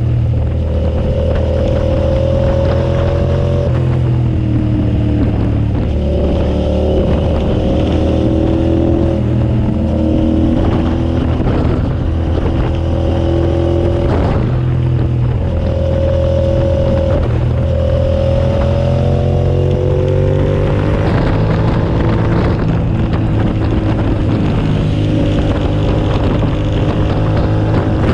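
2007 Suzuki SV650S's 645 cc V-twin engine running hard, its revs climbing and then dropping with each gear change several times over. Heavy wind rush on the microphone runs underneath.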